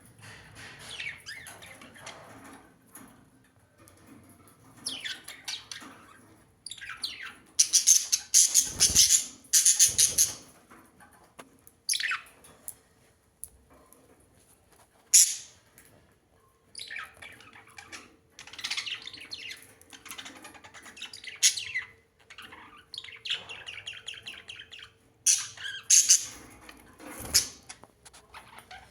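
Birds chirping and squawking in irregular bursts, with short pauses between them; the loudest, harshest bursts come about eight to ten seconds in.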